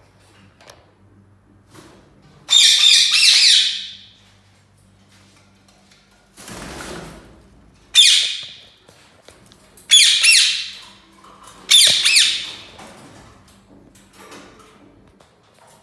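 Indian ringneck parakeets giving loud, harsh squawks: one long call about two and a half seconds in, then three shorter ones about two seconds apart in the second half.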